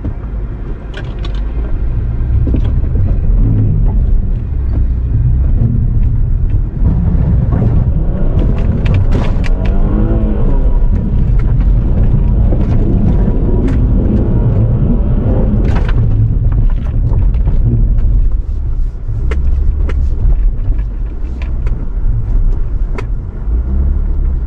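Jeep Cherokee Trailhawk crawling over a rutted dirt trail, heard from inside the cab: the engine and drivetrain run under load with a steady low rumble, and scattered knocks and clicks from the tyres, suspension and body.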